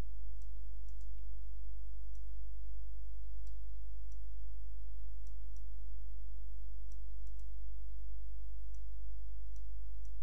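Faint, scattered computer mouse clicks over a steady low hum.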